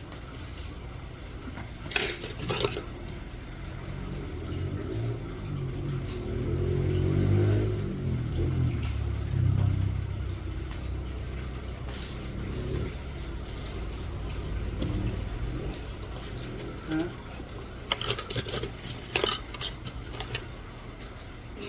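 Small metal nail tools clicking and clinking, in quick clusters near the start and again near the end, over a low background murmur.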